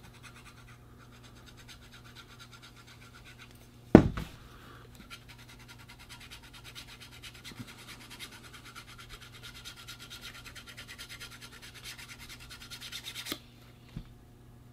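A dull knife edge scraping the coating off a scratch-off card in rapid, fine strokes, with a single sharp knock about four seconds in. The scraping grows busier from about five seconds and stops abruptly near the end.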